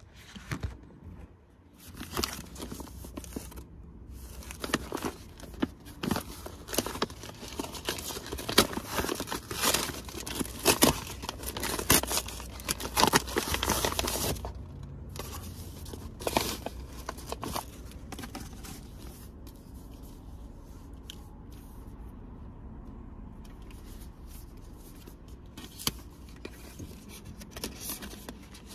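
A plastic-wrapped padded mailer being torn open and crinkled by hand, a dense run of tearing and crackling for about the first fourteen seconds. After that come sparser rustles of paper packaging over a steady low hum in the car cabin.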